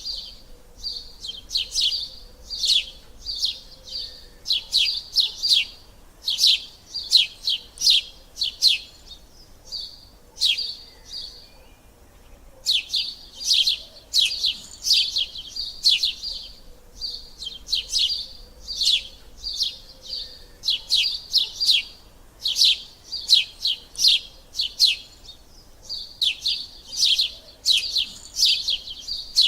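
Sparrows chirping close by in quick runs of short, sharp, high chirps, with a brief lull about eleven seconds in.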